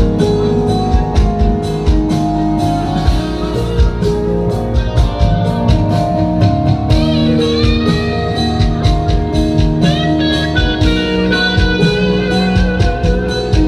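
A live band playing an instrumental: an electric lead guitar carries the melody, with bent, gliding notes in the second half, over bass guitar, keyboard and a steady beat from drums and percussion.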